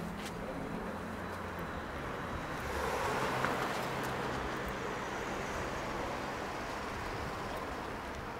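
City street traffic: a steady wash of vehicle noise that swells as a vehicle passes about three seconds in.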